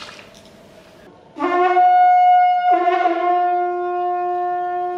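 A horn-like wind instrument sounding long, steady blasts on a single note, starting about a second and a half in and blown again just before halfway.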